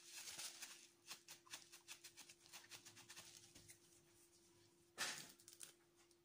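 Faint rustling and light scratching of a gauze swab being wiped over a freshly sutured incision, fading out after about three seconds, over a steady faint hum. A brief louder rustle comes about five seconds in.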